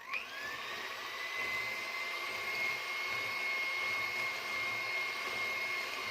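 Electric hand mixer starting up with a quickly rising whine, then running steadily, beating eggs and sugar until they turn pale and creamy.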